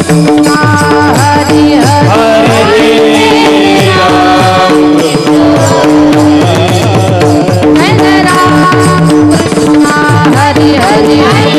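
Marathi devotional kirtan music: a woman singing an ornamented melody over a steady harmonium drone, with a hand-drum keeping a regular beat.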